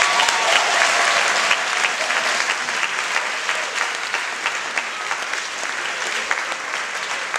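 Audience applauding: many hands clapping in a dense, steady patter that eases off slightly toward the end.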